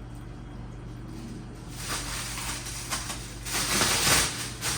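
Rustling and handling noise of packaging as an electric pressure cooker is unpacked: a low steady hum at first, then from about two seconds in irregular bursts of rustling, loudest near the end.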